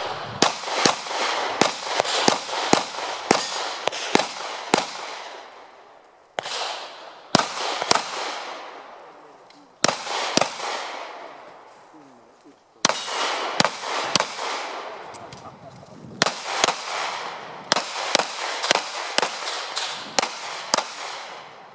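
Heckler & Koch P30L 9mm pistol fired in strings of quick shots, several a second, during an IPSC practical-shooting stage run. Each shot is a sharp crack that rings out in an echo, and the strings break off for a second or two between target arrays and reloads.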